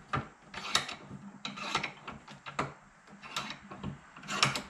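Cast-iron bench vise being cranked shut by its handle: about eight short, irregular metal scrapes and clicks as the screw turns and the handle bar slides and knocks.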